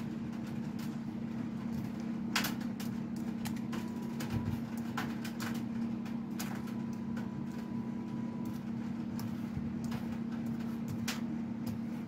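Laptop keyboard keys clicked one at a time at an uneven pace as a command is typed in, over a steady low hum.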